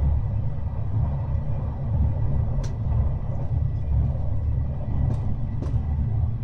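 Running noise of a Japanese sleeping-car coach heard inside its compartment: a steady low rumble from the car's TR217 bogies. Three sharp ticks, the first about two and a half seconds in and two close together near the end, are chunks of ice thrown up from the snow-covered track striking the underside of the car.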